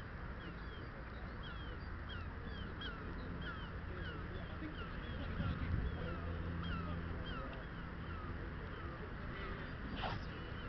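A bird calling over and over, short downward-sliding notes about two or three a second, over a steady low wind rumble. A single sharp knock comes near the end.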